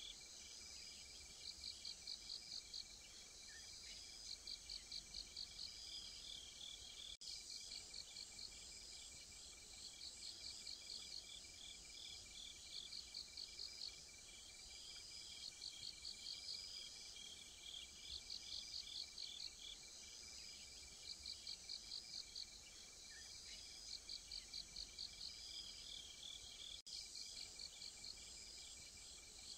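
Faint insect chorus. One cricket-like insect calls in short, fast pulsed trills about every two seconds, over a steady high continuous trill from other insects.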